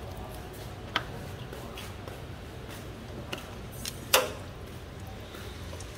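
A few sharp metallic clicks of hand tools on the exposed valve body of a Perodua Myvi's automatic gearbox, one about a second in and the loudest about four seconds in, over a steady low hum.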